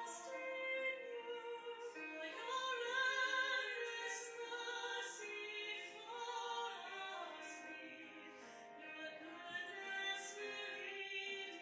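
A recorded hymn sung by a choir, with long held notes.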